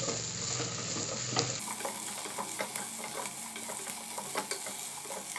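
Wooden spatula stirring chopped vegetables frying in ghee in a pot: a steady sizzle with frequent clicks and scrapes of the spatula against the pan.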